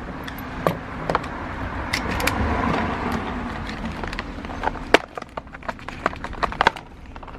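Sharp clicks and cracks of hands prying at a new doorbell's packaging, with a rush of noise that swells about two seconds in and fades a couple of seconds later.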